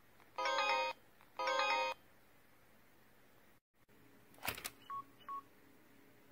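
Samsung Freedom phone's low-battery power-off alert: a short electronic melody played twice in a row. After a short break there is a brief click, then two short single beeps, a second phone's low-battery warning tone.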